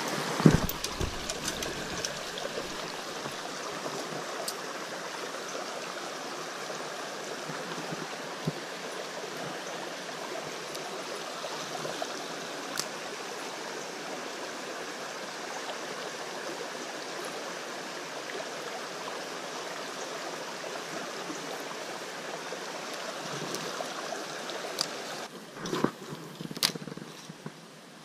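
Creek water running over rocks in a shallow riffle, a steady rush. Near the end the rush drops away and a few sharp clicks and knocks are heard.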